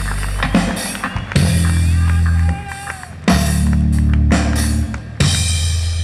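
A rock band's drum kit and electric bass playing together through a stage PA: four heavy accented hits, each a drum and cymbal crash over a long held low bass note that rings on before the next.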